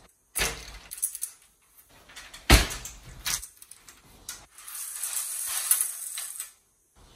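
Roof cargo basket being flipped over and set down: a series of knocks and clatters, with one loud bang about two and a half seconds in, then a couple of seconds of scraping.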